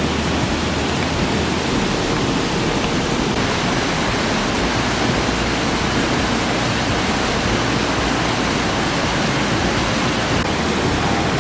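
Mountain floodwater from a monsoon downpour rushing steadily down a swollen, muddy stream.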